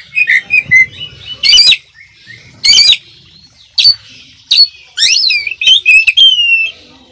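Oriental magpie-robin singing vigorously: a rapid string of loud, varied phrases, sliding whistles mixed with a few harsh, raspy bursts, ending on a longer falling whistle.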